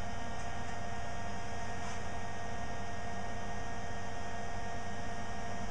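Steady electrical hum made of several constant tones over a light hiss, with no distinct knocks or other events.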